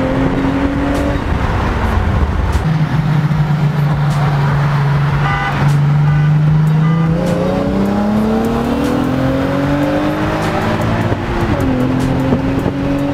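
Car engine heard from inside the cabin during a roll race. It holds a steady note, then revs up under hard acceleration for several seconds, and its pitch dips briefly near the end.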